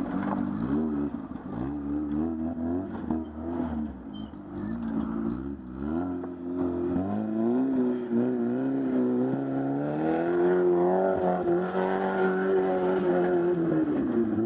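Off-road 4x4's engine revving up and down unevenly under load, then held at high revs through the second half as it climbs a steep dirt slope, dipping briefly near the end.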